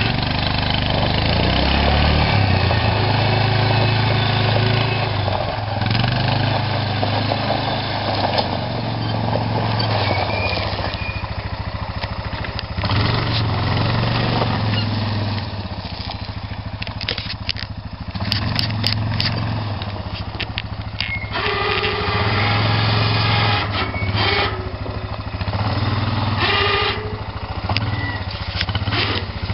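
ATV engine running under load, its speed rising and falling in spells as the quad works a front-mounted bucket through gravel.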